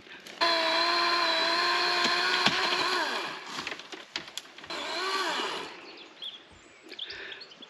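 Chainsaw running at high revs for about three seconds, then easing off, with one more short rev about five seconds in.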